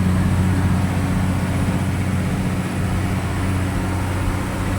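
A motor vehicle running steadily, its engine an even, low hum that does not change.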